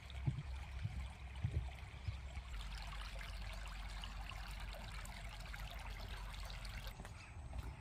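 Shallow, stony stream trickling and rippling over rocks: a steady water hiss that grows fuller about two and a half seconds in. A few low thuds come in the first second or so.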